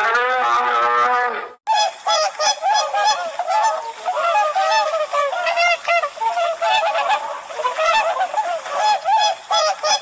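A black bear's drawn-out call for about the first second and a half, then a flock of swans giving many short, overlapping honks.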